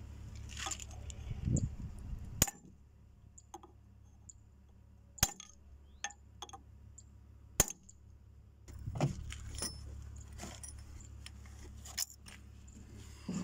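Steel drift struck with a hammer to drive a bearing down around the splined pinion shaft in a HAMM 311 roller's drive housing: three sharp metal blows a couple of seconds apart, with lighter metallic clinks between and after.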